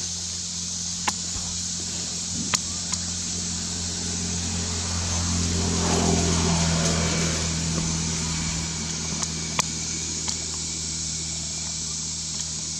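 Steady low hum of a running engine, with a motor vehicle passing by around the middle: it grows louder and its pitch falls, then it fades. A few sharp clicks stand out.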